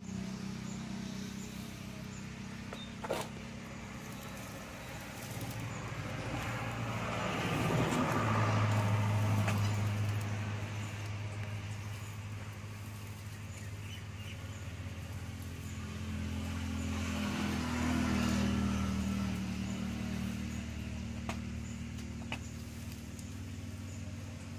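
A motor engine running steadily with a low hum that swells louder twice, about a third of the way in and again past the middle, with a single sharp click a few seconds in.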